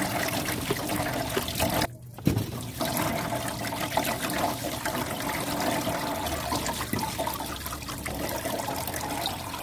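Kitchen tap water running steadily onto chopped Chinese cabbage as it is rinsed by hand in a plastic basket and then a stainless-steel colander. The running water breaks off briefly about two seconds in.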